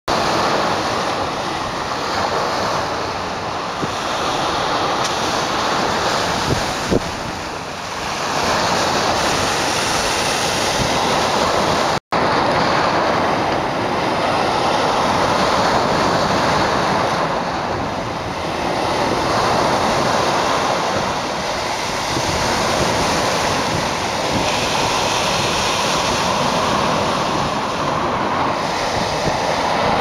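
Lake Ontario waves breaking and washing over a rocky rubble shoreline: a continuous rushing surf that swells and eases every few seconds. The sound cuts out for an instant about 12 seconds in.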